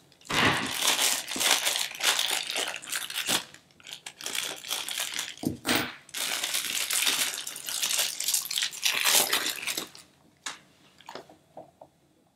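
Clear plastic bag crinkling and rustling as a squishy stress ball is unwrapped from it by hand. The crinkling stops about ten seconds in, leaving a few faint taps.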